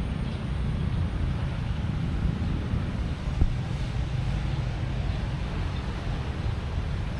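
Steady low rumble of wind buffeting the microphone outdoors, with one short knock about three and a half seconds in.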